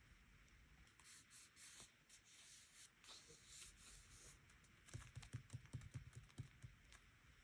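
Faint pen scratching on diary paper in short strokes, followed about five seconds in by a quick run of soft taps on the desk or page.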